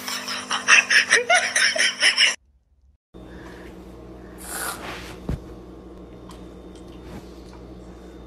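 A rubber balloon squeaking and rubbing in a rapid series as hands squeeze it. It cuts off after about two seconds; after a short gap there is a brief hiss of an aerosol whipped-cream can spraying over quiet room tone, and a single click.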